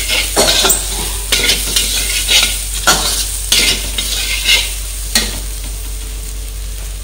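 Steel spatula scraping and tossing puffed rice, sprouted chickpeas, paneer and potato around a metal kadhai, in about a dozen quick irregular strokes that stop about five seconds in. A steady frying sizzle runs underneath as the mix is roasted.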